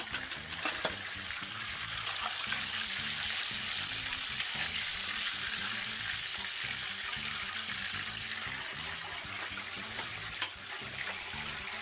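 Battered chicken thighs deep-frying in hot oil in a cast iron fryer: a steady, even sizzle, with a few light clicks near the start and a short knock about ten seconds in.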